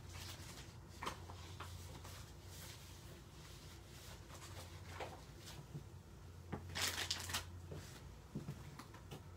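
Rustling and handling of paper and craft supplies off-camera, with scattered light clicks and a louder rustle about seven seconds in, over a low steady hum.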